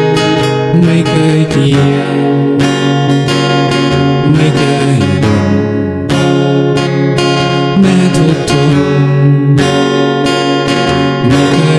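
Instrumental music led by guitar, with plucked and strummed acoustic guitar over a steady accompaniment.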